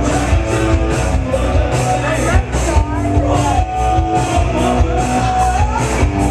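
Loud music with a steady fast beat and a melody line running over it.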